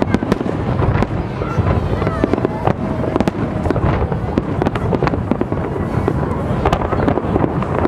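Aerial firework shells bursting in rapid succession, several sharp bangs and crackles a second over a constant low rumble.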